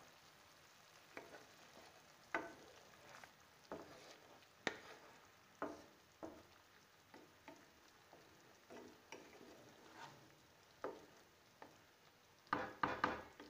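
Spatula stirring fish pieces in a simmering mustard-curd gravy in a non-stick pan: faint sizzling under soft, irregular scrapes and taps of the spatula on the pan, with a quick run of them near the end.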